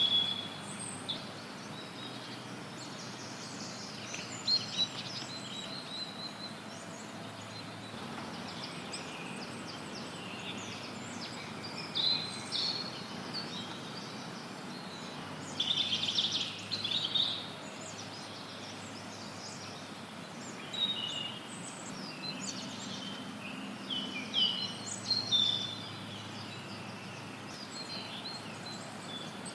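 Songbirds chirping and trilling in scattered short bursts over a steady, even hiss of white noise.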